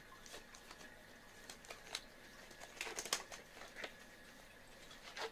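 Faint rustling and a few soft clicks of non-sterile disposable exam gloves being pulled onto the hands.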